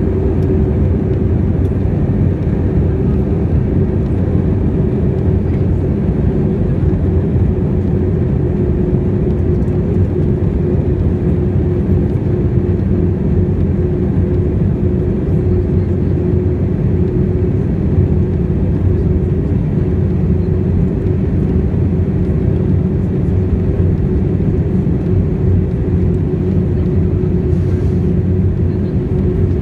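Steady cabin noise of an Airbus A319-131 airliner in flight: a low rumble of airflow and IAE V2500 engines, with a steady humming tone above it.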